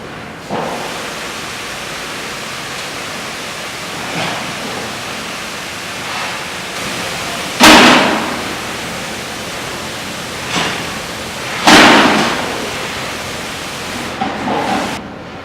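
Robotic arc welding: the welding arc hissing steadily, with several short louder bursts, the two loudest about four seconds apart.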